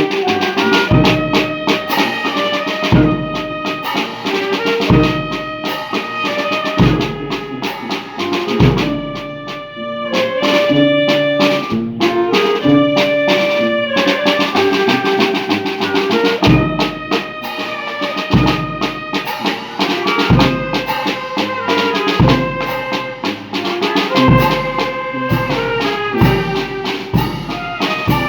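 Brass band music: trumpets and other brass playing a tune over a drum kit, with a bass drum struck about every two seconds.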